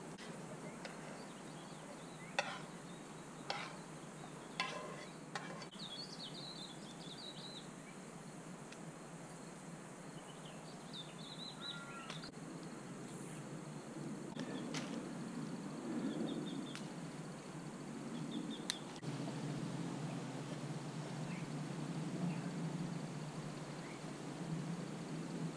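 Outdoor dusk ambience: birds chirping now and then over a steady background, with three sharp clicks in the first few seconds and a low steady rumble that comes up about two-thirds of the way through.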